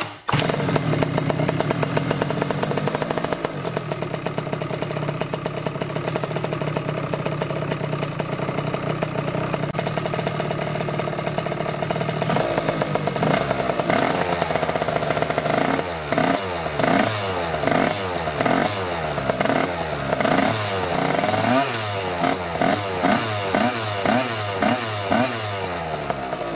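A TPR 86cc scooter engine running steadily at idle. From about 16 seconds in, it is revved in short blips, rising and falling about once a second.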